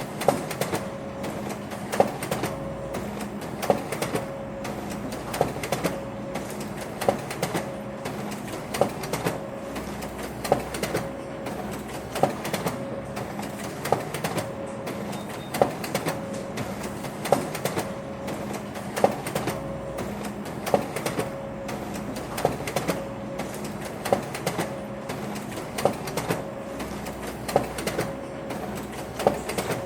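Office printer running in a continuous repeating cycle: a sharp mechanical click roughly once a second over a steady whirring hum.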